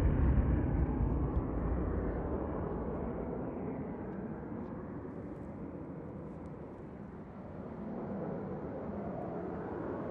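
Jet noise from BAE Hawk jet trainers fading away after a pass, a broad rumble with no clear pitch, then swelling again slightly near the end as the jets come back round.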